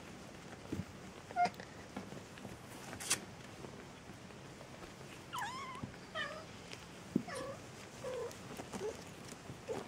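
Young Maine Coon kittens mewing, a run of five or six short high calls about one a second in the second half, with a few soft taps before them.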